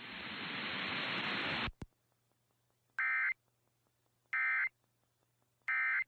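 Radio static hiss that cuts off abruptly, then three short, identical warbling data bursts about a second apart: the Emergency Alert System end-of-message (NNNN) code, marking the end of the NOAA Weather Radio alert.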